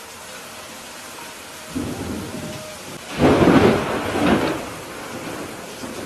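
Steady rain with a roll of thunder that begins about two seconds in, peaks a little past the middle, then rumbles away.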